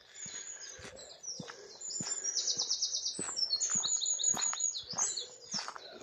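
Songbirds singing, with rapid high trills and whistled phrases that grow louder about two seconds in, over steady walking footsteps about two a second.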